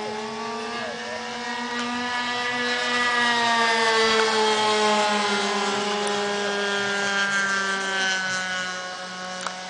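Two model airplanes' O.S. .91 glow engines running at high power in flight, each a steady engine note whose pitch wanders slightly. The sound swells to its loudest about four seconds in as a plane passes close, then fades.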